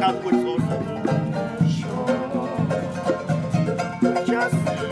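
Plucked-string band music, strummed chords over a steady beat.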